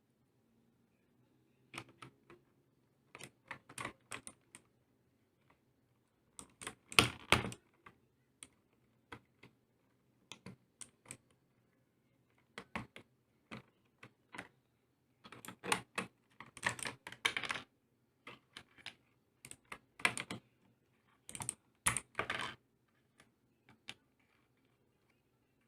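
Typing on an Armageddon MKA-3C mechanical keyboard: irregular bursts of rapid key clicks with short pauses between them.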